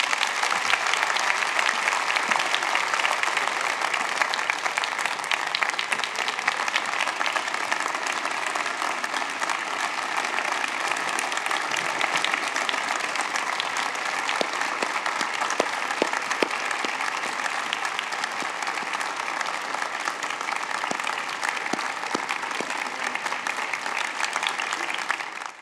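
Large audience applauding, an even, sustained ovation of many hands clapping.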